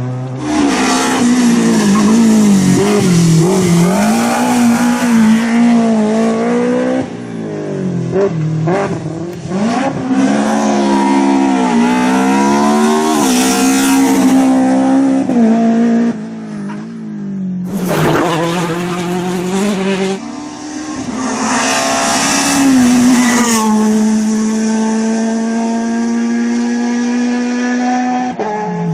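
Rally car engine revved hard, its note climbing and dropping again and again through gear changes and lifts off the throttle. A little past halfway it breaks off sharply, and near the end it holds a steadier note.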